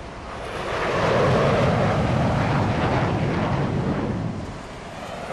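Jet aircraft engine noise on a carrier flight deck as a jet is catapulted off. It is a steady rushing noise that swells about half a second in and eases briefly near the end.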